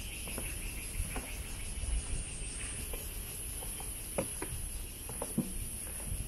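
Insects calling in a steady high-pitched drone, with footsteps on a wooden boardwalk making scattered soft thuds and clicks.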